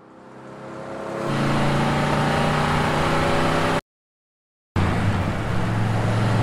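Motorcycle engine sound effect in an animated film. It fades in from silence and builds to a steady loud run, cuts off abruptly a little under four seconds in, and comes back about a second later.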